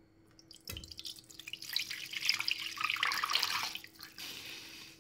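Liquid poured into a pan of hot oil: a soft thump about a second in, then loud sizzling and spattering that eases into a steadier sizzle near the end.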